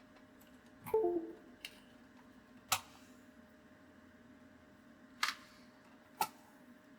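Five sharp clicks or knocks, spaced irregularly, over a steady low electrical hum. The first and loudest is followed by a brief falling run of short tones.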